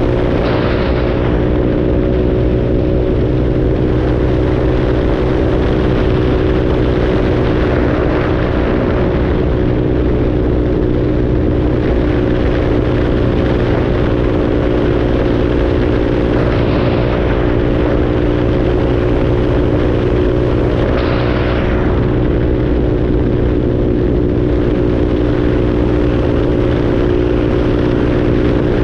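Motorcycle engine running at a steady cruising speed, its note holding an even pitch, under wind and road rush. A few brief swells of rushing noise rise and fall along the way.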